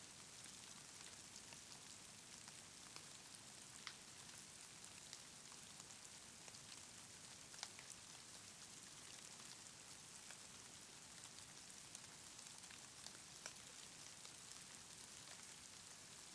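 Faint ambience of light precipitation: a steady high hiss with scattered soft ticks.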